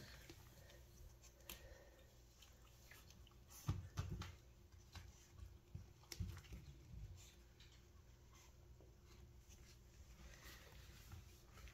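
Near silence with soft handling noise: faint rustles and clicks as puppies move about on blankets, and a few low bumps around four and six seconds in as a puppy is picked up and held.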